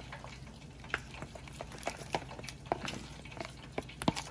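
Metal spoon stirring thick tempura batter in a plastic bowl: irregular wet slaps and light taps of the spoon against the bowl.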